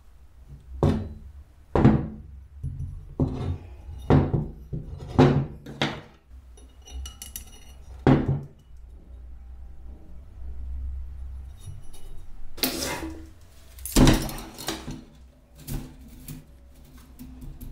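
Metal pieces handled on a steel-topped workbench: a series of sharp knocks and clinks as a rusty steel bracket and a welding rod are set down and moved, and a short rustling clatter when a coil of wire is handled.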